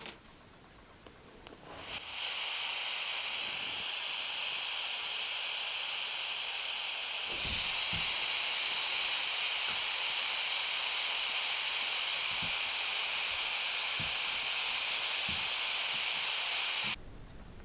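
A steady, loud static-like hiss starts abruptly about two seconds in, gets a little brighter partway through, and cuts off sharply about a second before the end. A few faint low thuds sound under it.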